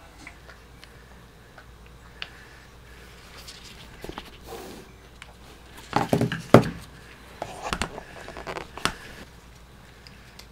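Soft clicks and rustles, then a cluster of loud rustling knocks about six seconds in and more between about seven and a half and nine seconds: handling noises as a cat is fed a treat from a stick.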